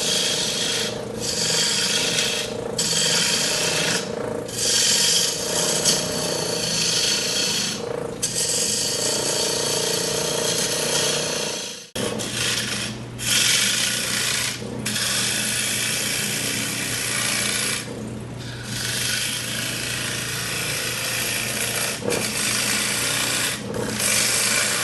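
A wood lathe running with a steady hum while a turning tool cuts the spinning wood, a hiss of shavings in repeated passes with brief breaks between them.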